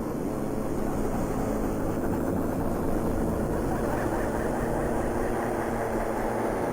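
A steady, continuous engine-like mechanical drone with several held tones.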